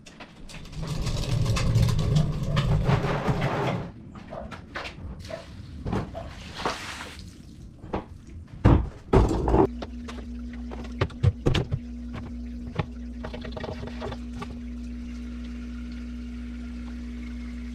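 Aquarium wastewater being dumped out of a large plastic wheeled trash can, with the can knocking and thudding as it is handled; about ten seconds in, a steady low hum takes over.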